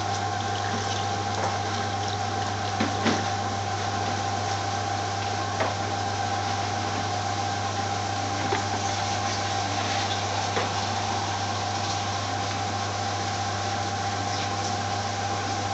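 Steady machine hum with a low drone and a constant whine, broken by a few faint clicks.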